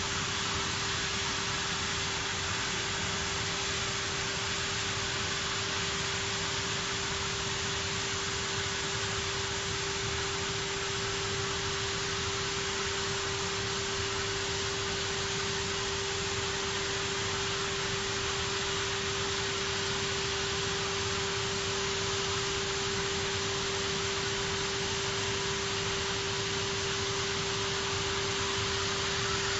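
CNC gantry profile-cutting machine's torch cutting through a steel plate: a steady, even hiss with a single steady mid-pitched tone running through it.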